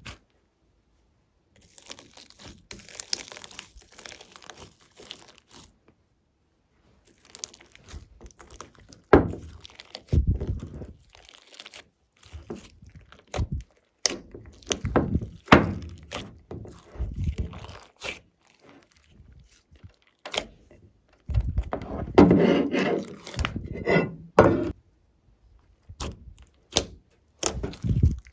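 Glossy slime being worked by hand, giving off intermittent sticky squelches and crackles, with several dull thunks as it is pressed and slapped down.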